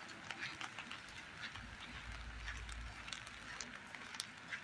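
Steady rain falling, a soft even hiss with scattered drops ticking close by.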